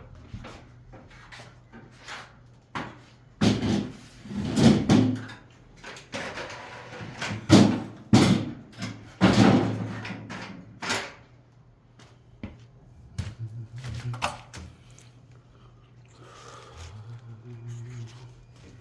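Irregular knocks, bumps and scraping, heaviest in the middle, over a steady low hum.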